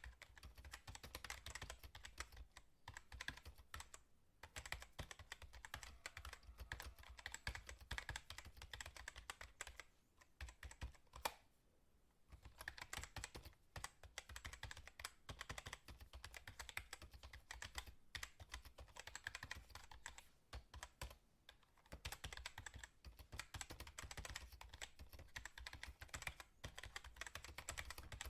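Computer keyboard being typed on quickly: a dense, rapid run of key clicks with short pauses, the longest about ten seconds in.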